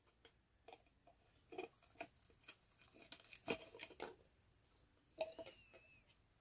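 Faint, scattered clicks and light scraping of a small truck on a wooden ice cream stick being slid and nudged into place inside a clear jar ornament, with a brief faint squeak near the end.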